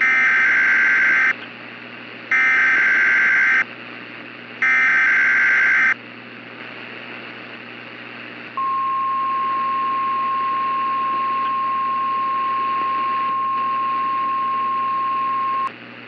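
NOAA Weather Radio alert: three short bursts of SAME digital header tones, each about a second long, then after a pause a single steady warning alarm tone held about seven seconds. Together they signal a new severe thunderstorm warning. A faint radio hiss runs underneath.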